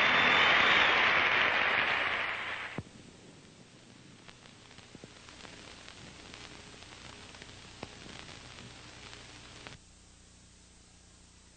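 Audience applauding, cut off abruptly about three seconds in. Then only the faint hiss and crackle of the old recording, with scattered clicks.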